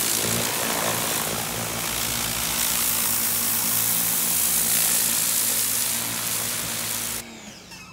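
Electric pressure washer running with a turbo nozzle: the pump motor hums steadily under the loud hiss of the high-pressure water jet. About seven seconds in the trigger is released and the motor and spray cut off at once.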